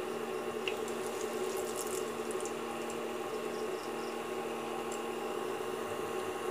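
Pakora batter deep-frying in hot oil in a kadhai: a steady sizzle with a faint hum underneath.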